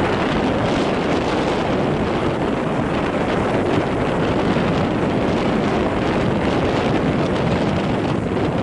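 Strong wind of about 10 to 11 m/s blowing across the microphone, a steady rushing noise with no let-up.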